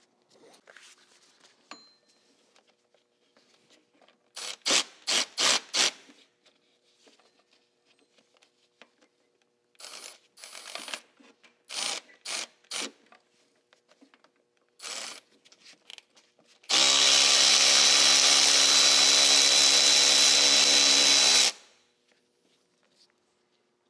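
Milwaukee cordless ratchet backing out the power steering pump's 12 mm bolts. It runs in several short bursts, then in one long steady run of about five seconds near the end.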